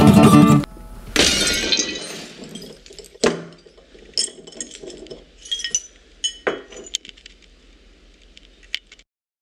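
A green glass bottle breaks with a crash about a second in. Broken glass shards then clink and tinkle several times as they are handled.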